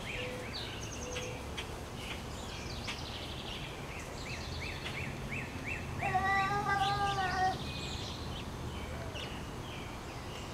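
Small birds chirping and singing repeatedly in the yard, with a run of quick falling chirps about three a second. About six seconds in, a young child's voice calls out once, a held cry lasting about a second and a half.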